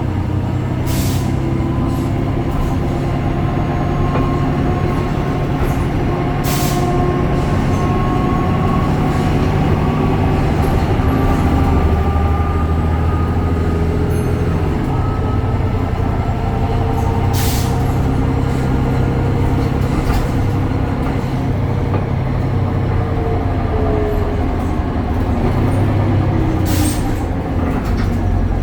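BredaMenariniBus Avancity Plus city bus under way, its Deutz diesel engine running with a steady low drone and several whining tones that slowly rise and fall in pitch. Four short hisses are heard along the way.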